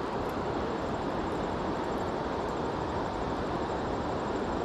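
Steady rushing of river water flowing around the wading angler.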